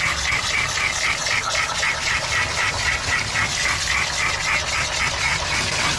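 Water spraying from a grooming tub's hose nozzle into a wet dog's coat: a steady hiss with a quick pulse, about four or five a second.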